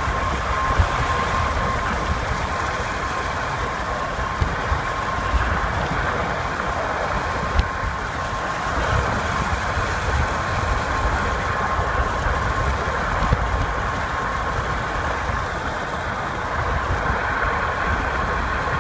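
Car travelling on a freeway, heard from inside the cabin: steady road and engine noise with a thin, steady whine and a few small knocks.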